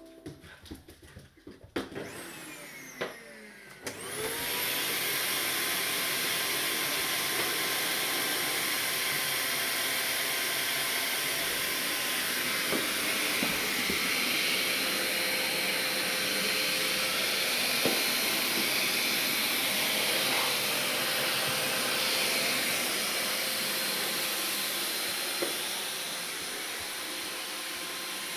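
A vacuum cleaner switching on about four seconds in, its motor winding up to speed with a rising whine, then running steadily, a little quieter near the end. A few light clicks and knocks come before it starts.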